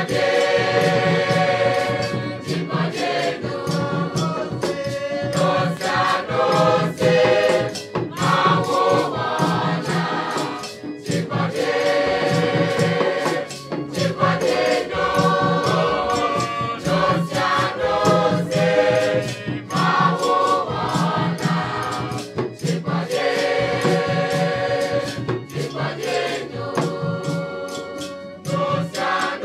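Mixed school choir of girls' and boys' voices singing together in parts.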